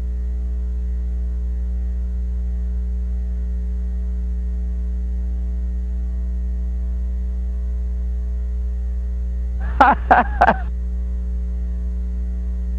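Steady electrical mains hum with a ladder of overtones, left on the soundtrack where the music is missing. A brief vocal sound breaks in about ten seconds in.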